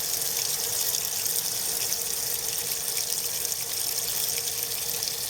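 Cold tap water running steadily into a Haier HLP23E portable washing machine's tub as it fills for the rinse, an even rushing hiss with a faint steady hum beneath it.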